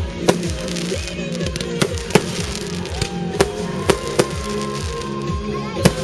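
Firework shells bursting in the air, about seven sharp bangs with the loudest near the end, over music that plays throughout.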